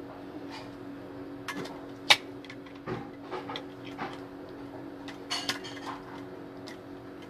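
Plastic parts of a new Imarflex electric fan being handled and fitted together: a series of irregular clicks and knocks, the sharpest about two seconds in.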